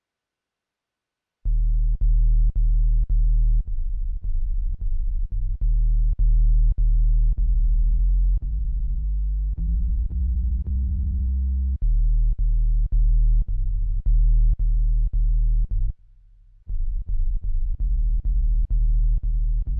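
Electronic music from an Akai MPC: a deep, loud synth bass line of short repeated notes, about two a second, changing pitch as it goes. It starts about a second and a half in and drops out briefly near the end before coming back.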